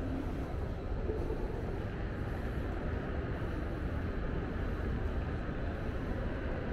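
Steady low rumbling background noise of a large train-station concourse, an even hum with no distinct events.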